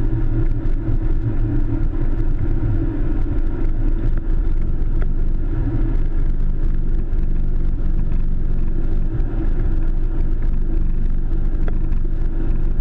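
Boeing 737 taxiing, heard from inside the cockpit: a steady low rumble and hum from the engines at taxi power and the wheels rolling on the taxiway, with a few faint ticks.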